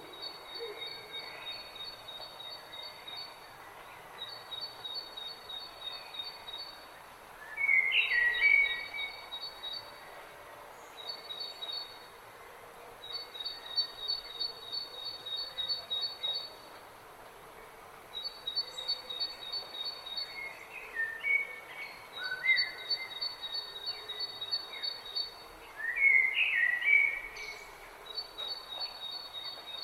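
Wild birds chirping and calling outdoors. A high, rapid trill repeats in bouts of a few seconds throughout, and louder chirpy calls break in about a quarter of the way through and again several times near the end.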